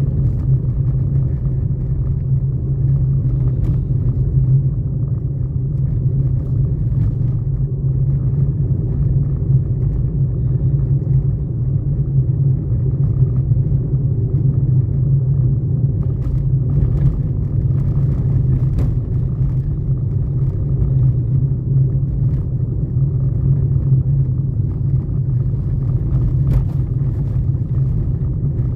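Steady low rumble of a car on the move, heard from inside the cabin: engine and road noise, with a few faint ticks.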